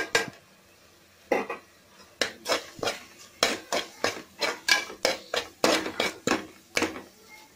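A metal slotted spatula scraping and knocking against an aluminium pressure cooker while thick onion-tomato masala is stirred and fried. After a short pause about a second in, it runs as quick repeated strokes, about two or three a second.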